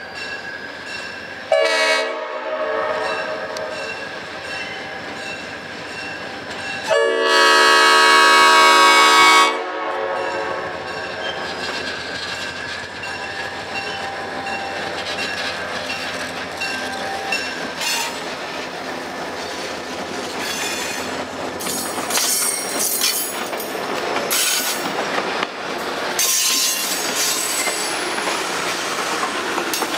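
Diesel locomotive horn sounds a short blast and then a long blast over a steadily ringing grade-crossing bell. The locomotive and the inspection train then roll through the crossing, wheels clacking over the rail joints and squealing at times.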